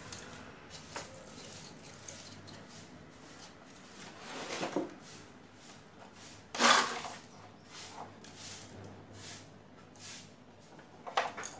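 Handling noises from a CRT television's main circuit board being unplugged and slid out of its chassis: rubbing and light clatter, with a sharp knock about six and a half seconds in and another near the end.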